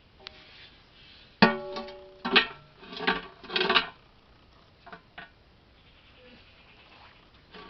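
Large aluminium cooking pot clanging against its metal burner stand as it is set down and settled into place: a sharp ringing clang about a second and a half in, three more clangs over the next two seconds, then a few lighter knocks.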